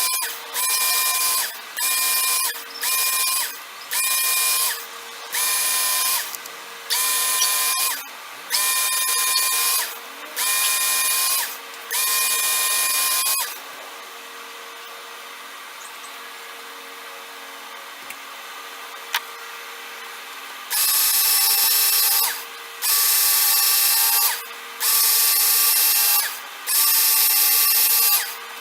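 Work Sharp Knife & Tool Sharpener's motor running with its 6000-grit honing belt while a steel knife blade is drawn through it in repeated passes. Each pass is a high-pitched grinding of about a second, about ten in a row. The motor then runs on alone for about seven seconds, and another run of passes starts about two-thirds of the way in.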